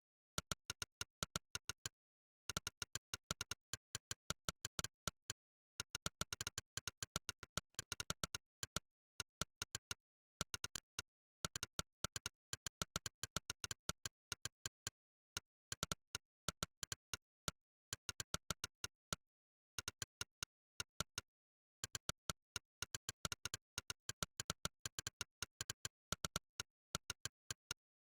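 Monkeytype's 'click' typing sound effect: a short synthetic click for each keystroke, coming in quick runs of several a second with brief pauses between runs, as in fast touch-typing.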